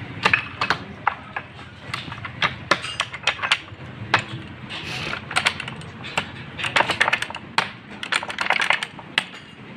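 Hand tools clicking and knocking against metal parts while a harvester gearbox is being fitted: irregular sharp clicks and light knocks, some coming in quick clusters.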